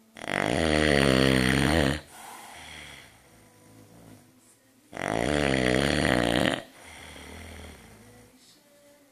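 Loud snoring: two long snores about five seconds apart, each lasting about two seconds with a wavering pitch, and each followed by a softer, shorter breath.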